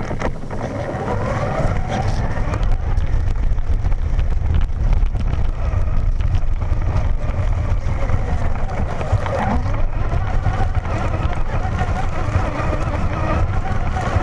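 Traxxas Slash VXL RC truck heard through its own onboard camera as it drives through tall grass. It starts abruptly as the truck pulls away. A wavering motor whine rises and falls with the throttle over a heavy rumble of chassis vibration, grass brushing and wind on the microphone.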